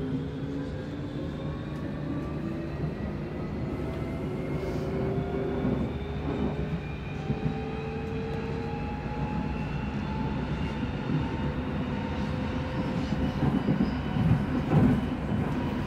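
Amsterdam metro train accelerating away from a station, heard from inside the carriage: the traction motors' whine rises slowly in pitch over steady running noise. Near the end come louder knocks and clatter from the wheels on the track.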